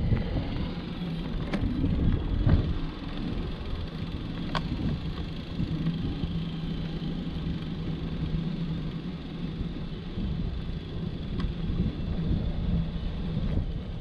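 Wind buffeting a handlebar-mounted action camera's microphone as a road bike rolls down a concrete driveway, a steady low rumble with tyre noise and a few faint clicks.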